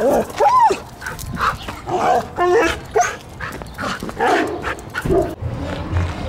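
A string of short, dog-like barks and yips, several sliding up and back down in pitch.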